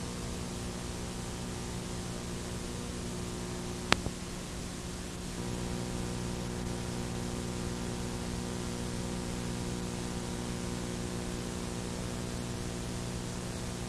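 Steady tape hiss with a low electrical hum from an old video dub, with no game sound. There is a single sharp click about four seconds in, and the hiss gets slightly louder a second later.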